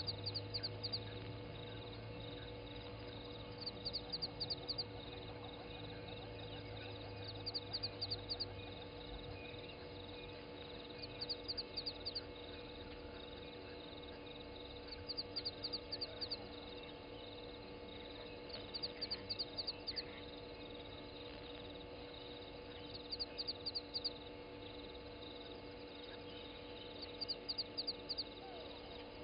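An animal's call, a short burst of rapid high clicks, repeats about every four seconds over a steady low hum.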